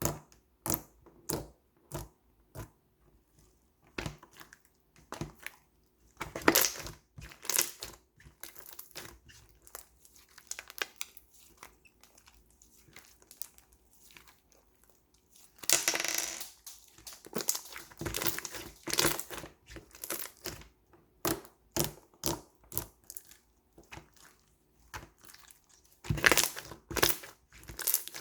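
Slime being squished and stretched by hand, giving a string of sharp clicking pops and three longer bursts of crackling.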